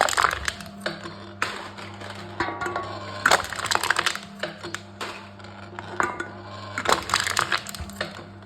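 Aluminium cans being crushed in a wooden crushing machine: bursts of crunching and crackling metal every second or two, over a steady low hum.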